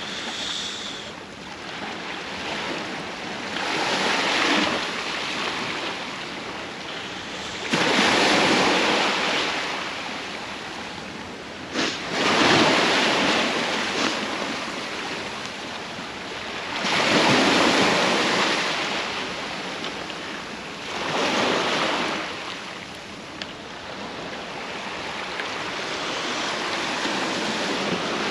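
Sea waves breaking on the shore, a steady wash of surf that swells up every four to five seconds as each wave comes in.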